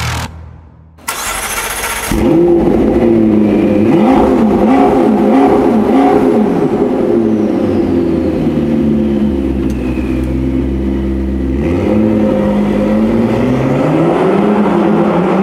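McLaren 650S's twin-turbocharged 3.8-litre V8 starting up about two seconds in, then revved repeatedly, its pitch rising and falling several times.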